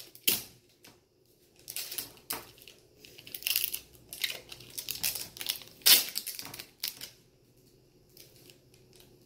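Tape being pulled off the roll and torn in a series of short, rasping strips, the loudest about six seconds in, with only faint handling noise in the last couple of seconds.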